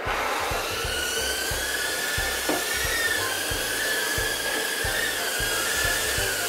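Micro FPV quadcopter's tiny motors and propellers spinning up, then hovering with a high whine that wavers in pitch as the throttle changes.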